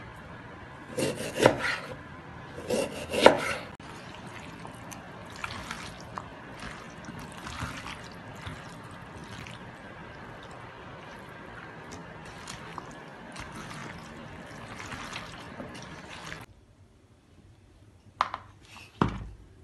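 Kitchen food preparation: a knife cutting beef on a wooden board, with a few sharp knocks in the first few seconds. Then a steady wet squishing and rustling of a hand mixing chopped vegetables and meat in a steel bowl, and two knocks near the end as the baked tray is handled.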